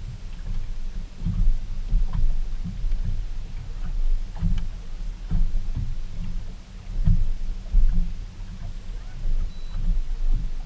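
Wind buffeting the microphone on an open boat: a gusting low rumble that swells and fades, with a few faint light knocks.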